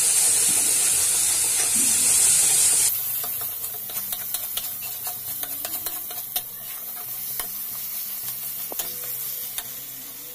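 Spiced onion-tomato masala sizzling in oil in a kadhai, loud for about the first three seconds, then quieter, while a metal spatula stirs it with many scraping clicks against the pan. The masala is being fried until the spices are cooked through.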